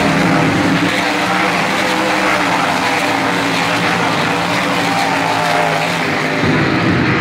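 A field of 360 sprint cars racing on a dirt oval: several methanol-burning 360-cubic-inch V8 engines running hard at once, a loud, steady blend of engine notes.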